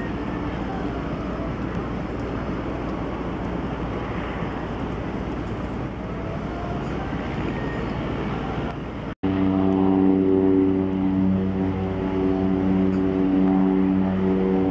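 Cessna 208 Caravan floatplane's turboprop engine running: a rough, noisy hum at first, then after a sudden break about nine seconds in, a louder steady propeller drone with several strong tones as the floatplane makes its takeoff run across the water.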